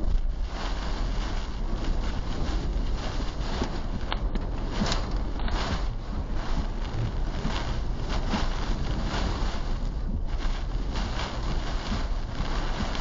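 Tornado wind and rain battering a car, heard from inside the cabin: a loud, steady rush with frequent sharp surges.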